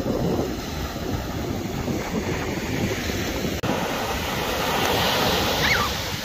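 Ocean surf washing on a beach, with wind buffeting the microphone; the wash swells about five seconds in, and a short high cry sounds near the end.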